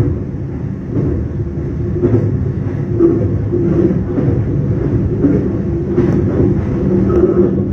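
Local passenger train running along the track, heard from inside the carriage. There is a steady low rumble with a constant hum and occasional faint clicks from the rails.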